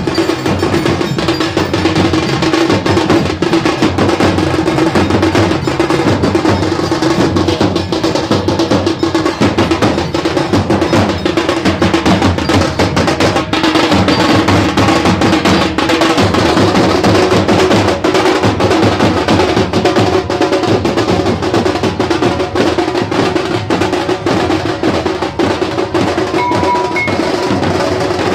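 A procession drum band playing a fast, continuous rhythm on large steel-shelled drums struck with sticks. A steady held tone runs under the drumming.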